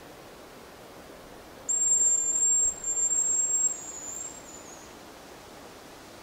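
Hazel grouse decoy whistle blown in imitation of the hazel grouse's song. It gives a thin, very high whistle held for about a second, then a second whistle after a short break, which trails off slightly lower.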